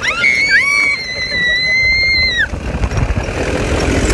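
A woman's long, high-pitched scream, held for about two seconds, with a second shorter shriek overlapping near its start; after it, wind noise and the tubular dune buggy's engine running as it drives over the sand.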